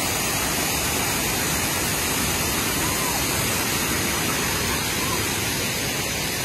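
Waterfall: a wide curtain of water pouring over a rock ledge into a pool, making a steady, even rush.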